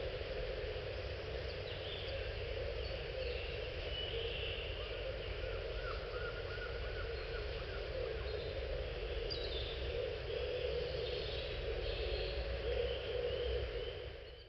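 Steady rush of a woodland brook, with small birds chirping over it and a short rapid trill about halfway through; the sound fades out at the very end.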